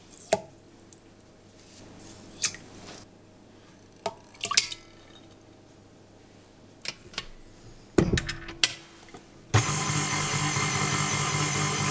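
Light clinks and taps in a stainless steel mixing bowl, with a cluster of knocks about eight seconds in. About nine and a half seconds in, a KitchenAid Artisan stand mixer's motor switches on and runs steadily, its beater stirring milk.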